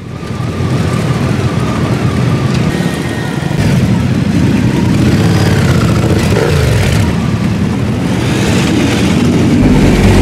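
A group of motorcycle engines, cruisers and sport bikes, running and revving as the bikes move off and ride close by, with engine notes rising and falling.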